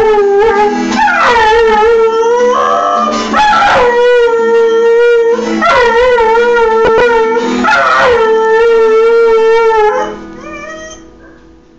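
A hound howling along to a strummed acoustic guitar, in long held notes that swoop up and down in pitch between sustained stretches. The howling stops about ten seconds in and the guitar fades out.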